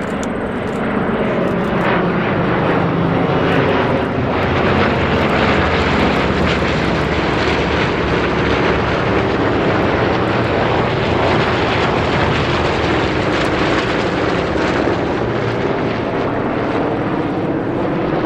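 Formation of propeller-driven aircraft flying overhead, a continuous loud engine drone whose pitch slowly shifts as the planes pass.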